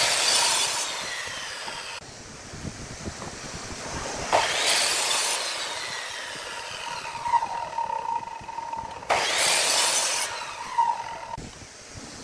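A wood lathe running while a turning tool cuts into the spinning wood. There are three loud hissing, scraping cuts, at the start, about four seconds in and about nine seconds in, with a steady whine between them.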